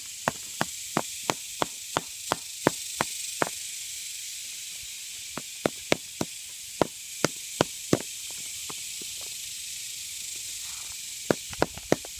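Small pointed chipping hammer tapping limestone to chip a pyrite nugget loose. Sharp ticks come about three a second in two runs with a pause between, and a few more near the end. A steady high hiss lies behind them.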